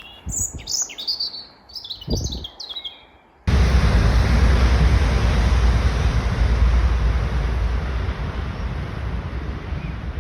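Small birds chirping and whistling for about three seconds, then a sudden switch to a loud, steady rumble with a deep low end that eases a little toward the end.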